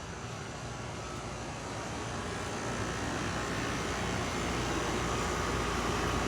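Skid steer engine running steadily, growing gradually louder.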